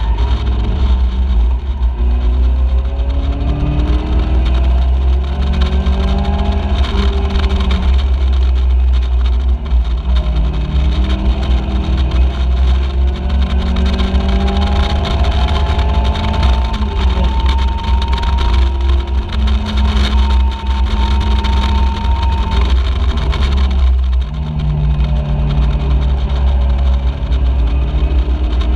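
Caterham Seven race car's engine heard from on board the open cockpit, revving up and dropping back through the gears at racing speed, under a heavy wind rumble on the microphone. The engine note holds steady at high revs for several seconds past the middle, then falls sharply near the end as the car slows.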